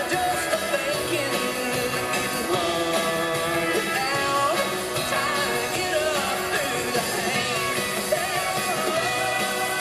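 Live country-rock band playing at full volume, with a male lead vocalist singing forcefully over it.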